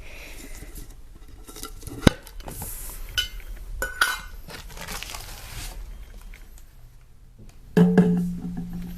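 A wall calendar's packaging being opened and handled by hand: light rustling with sharp clicks and taps, one of them about two seconds in. Near the end there is a brief low hum.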